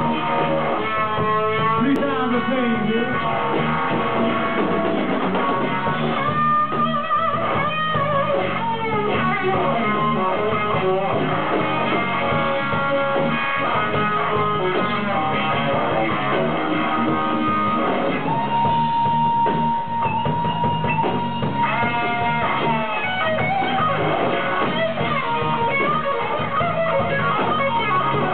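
Live electric blues: a Stratocaster-style electric guitar solo over the band, with bent, sustained notes and one note held steady for about three seconds just past the middle.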